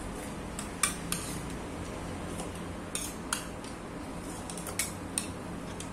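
Metal spoon clinking against a ceramic bowl while eating from it: about six sharp clinks a second or two apart, over a steady low hum.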